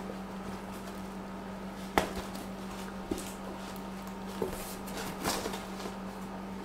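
Quiet room tone with a steady low hum, a sharp click about two seconds in, and a few fainter ticks later on.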